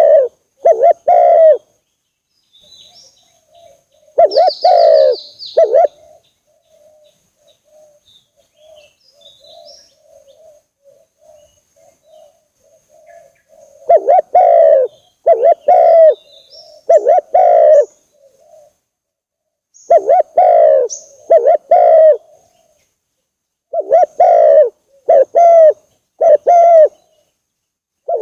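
Spotted dove (tekukur) cooing loudly in repeated phrases of two to four low coos with pauses between them. Between phrases a much fainter dove coos in a quick run, and small birds chirp faintly.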